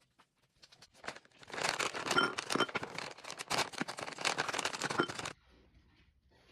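Plastic snack pouch crinkling and rustling as it is handled, for about four seconds, starting about a second in.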